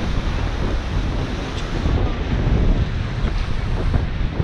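Surf washing and breaking against shoreline rocks, with wind rumbling on the microphone.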